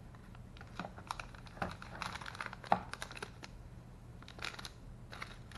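Clear plastic bags of electronic modules crinkling in the hands, with irregular small crackles and clicks that are busiest in the middle.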